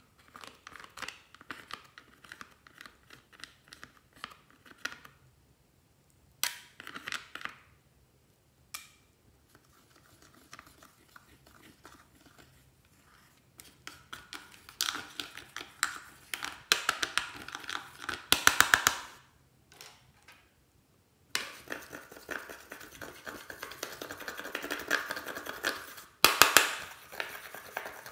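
Pressed eyeshadow and glitter being scraped and picked out of a plastic makeup palette with a pointed tool: rapid dry scratching and clicking strokes in bursts, with short pauses between them.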